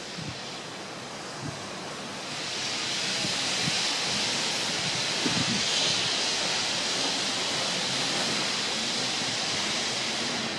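Steady rushing wind noise that swells about two seconds in and eases off near the end.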